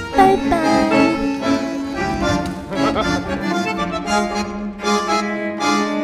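Instrumental background music, a melody of held pitched notes.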